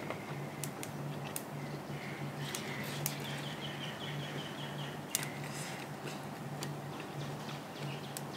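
Close-up eating sounds: chewing with sharp mouth clicks and crunches, over a low hum that cuts in and out. A short run of rapid ticking comes about three seconds in and lasts about two seconds.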